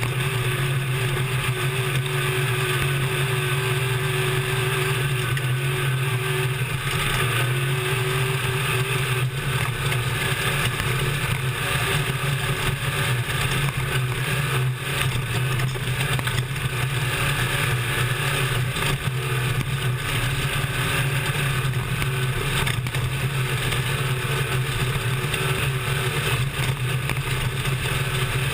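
Desert race truck's engine running hard at a fairly steady pitch, heard from inside the cab, over a dense rush of wind, dirt and chassis rattle with scattered knocks from the rough course.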